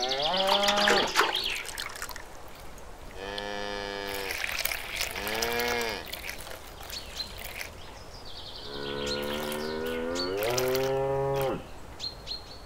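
A cow mooing four times, the last call the longest, with water poured from a small bucket splashing and trickling onto soil in the middle.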